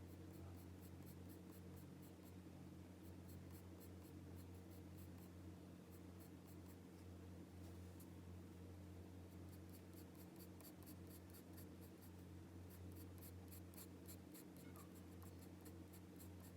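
Graphite pencil scratching on paper in runs of quick, short strokes with brief pauses between them, over a faint steady low hum.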